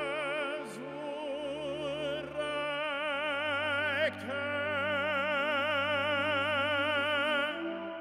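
Film score: a solo voice singing in operatic style with a wide vibrato over sustained low accompanying notes. The melody pauses briefly and resumes on a new held note about three seconds in, and stops shortly before the end as the accompaniment changes.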